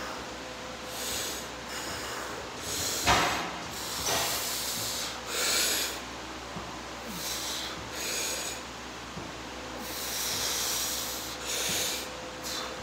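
Short, forceful breaths through the nose and mouth: about ten rasping exhalations at irregular intervals of roughly a second, from the strain of holding flexing poses. The sharpest comes about three seconds in. A faint steady hum runs underneath.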